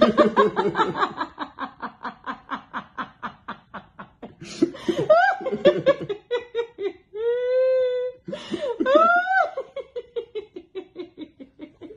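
A person laughing hard in a quick, rhythmic ha-ha-ha, breaking into high rising squeals and one long held note about halfway through.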